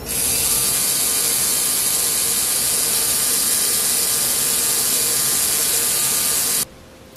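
3Doodler 3D pen's geared filament-feed motor running steadily as it pushes out plastic, a loud mechanical whir that cuts off abruptly near the end.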